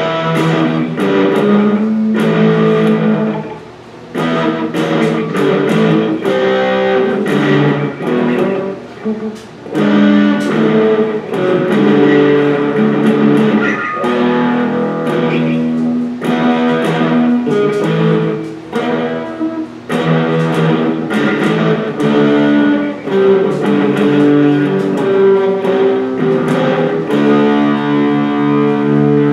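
Electric guitar played unaccompanied, strummed chords and picked notes with a few short pauses. It is being played to test its newly installed pickups.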